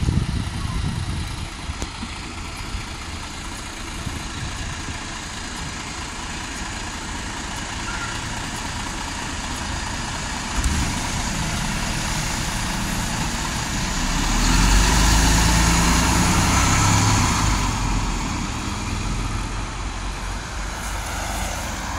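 Articulated Mercedes-Benz Citaro city bus running at a stop, its engine hum steady at first, then growing louder and deeper as it pulls away, loudest a little past the middle and easing off near the end.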